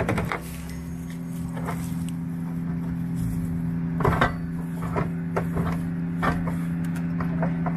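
Scattered knocks and scrapes of hands and tools digging out earth around a car's sill, with a cluster of sharper knocks about four seconds in, over a steady low hum.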